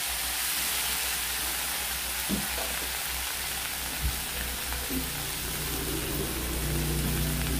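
Fresh doron (Leucas aspera) leaves and chopped garlic sizzling in hot oil in a steel kadai, just added over fried onion and dry fish. A steady hiss, with a couple of light knocks of the spatula against the pan.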